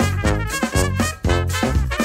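Upbeat brass band music: trumpet and trombone over a tuba bass line and drums, with a steady driving beat.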